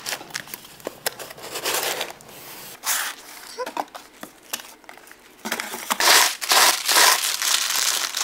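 Cardboard shipping boxes and brown wrapping paper being handled: irregular rustling, crinkling and scraping of paper and card, with small knocks. It grows loudest over the last three seconds.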